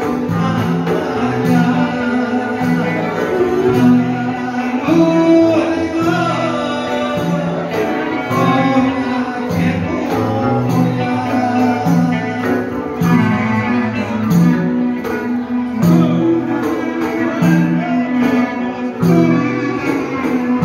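Live amplified Greek dance music from a small band, electric guitar and keyboard, over a bass line that repeats on a steady, even beat.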